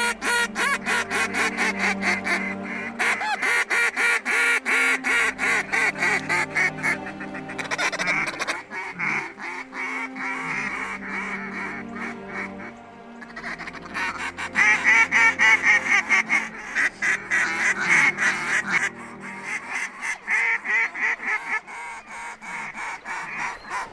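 Hand-blown duck call worked at circling ducks: long strings of rapid quacks and chatter, with a short break about halfway through.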